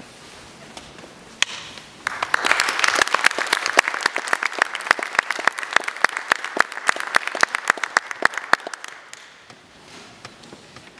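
Audience applauding. There are a few scattered claps at first, then fuller clapping swells about two seconds in and dies away shortly before the end.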